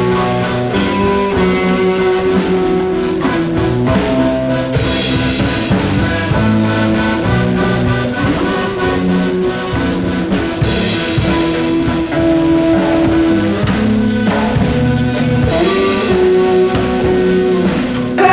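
Band music with a drum kit, guitar and held melody notes over a steady beat.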